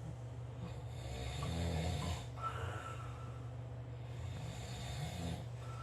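A sleeping dog snoring: two drawn-out snores, about a second in and again near the end.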